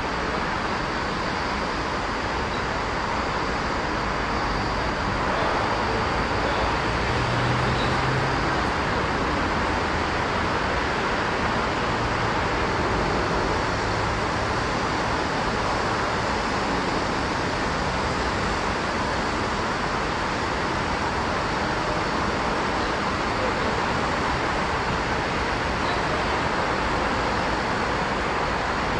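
Steady city road-traffic noise: a constant wash of many vehicles with no single event standing out.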